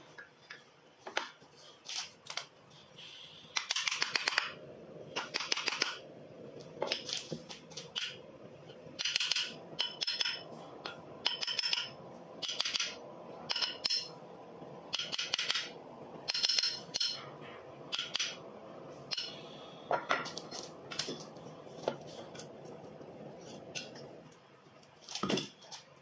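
Steel blades, a chisel and then a hatchet, paring and shaving the hardwood body of a wooden rebate plane in repeated short scraping strokes, roughly one a second. One heavier knock comes near the end.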